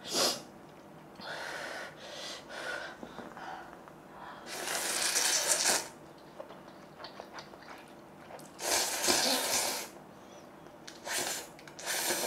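A person slurping instant ramyeon noodles in noisy pulls: two long, loud slurps around the middle, each about a second, with shorter, softer slurps and breaths between.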